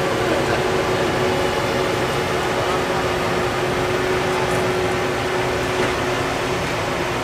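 Fendt 714 Vario tractor's six-cylinder diesel engine pulling hard and steadily as it drags a weight-transfer sled along the track, with a steady whine over the engine drone.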